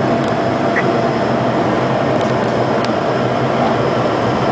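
Cockpit noise of a Bombardier Challenger 300 business jet in flight on approach: a steady rush of airflow and the two Honeywell HTF7000 turbofans, with a faint steady whine, heard from inside the cockpit.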